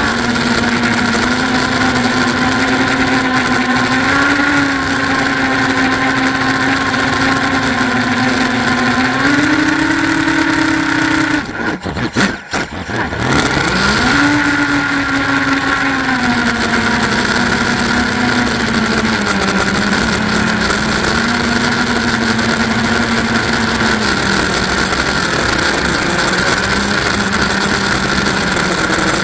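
Eachine Wizard X220 quadcopter's four brushless motors and propellers whining in flight, heard close from the onboard camera, with a steady hiss alongside. The pitch rises and falls with the throttle. About twelve seconds in the motors drop almost silent for a second or so, then climb sharply in pitch as the throttle comes back.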